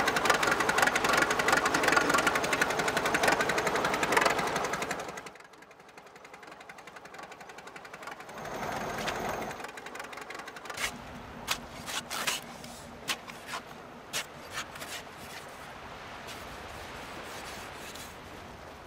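Fast, even mechanical rattling that stops abruptly about five seconds in. After it come a brief swell, a run of scattered sharp clicks and a steady hiss.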